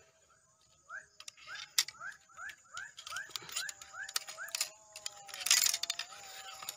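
Evening swamp chorus of frogs and insects: short rising chirps repeating two or three times a second over a steady high insect drone. A brief rustling noise comes about five and a half seconds in.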